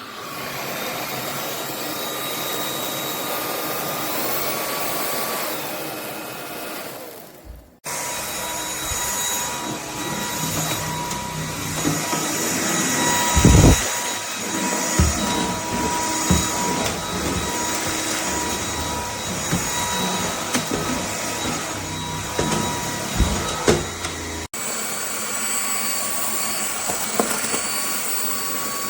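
Lubluelu cordless stick vacuum running, a steady rushing noise with a high motor whine. It dies away about seven seconds in and starts again, with several short low knocks in the middle stretch.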